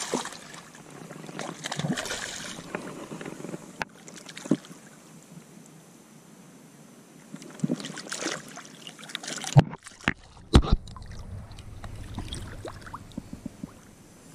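Shallow water sloshing and splashing in irregular bursts while a freshly landed bonefish is handled in the water, with a few sharp knocks about ten seconds in.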